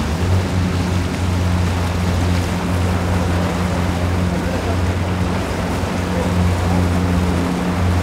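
Boat engine idling with a steady low drone, over a hiss of water and wind.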